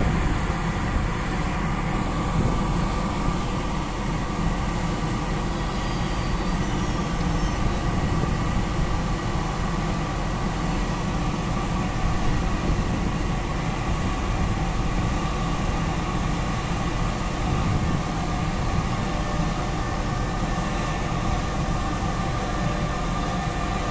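FS E412 electric locomotive pulling a freight train slowly away from a standstill: the steady hum of its running equipment with a steady electric whine, and a lower whining tone joining near the end.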